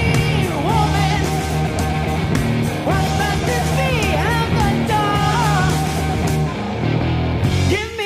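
Heavy metal band playing an instrumental passage: electric guitar with bending, gliding lead notes over bass guitar and drums. The backing briefly drops out near the end.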